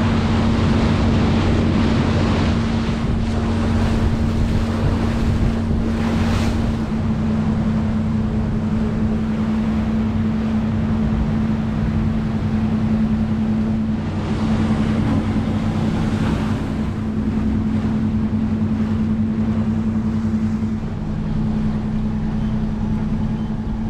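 Steady drone of a Nordhavn 50 trawler's main diesel engine under way, with rushing water and wind noise that swells several times.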